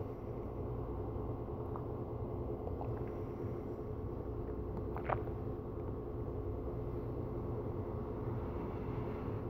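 Steady low hum of room noise with a few held tones in it, and one short click about halfway through.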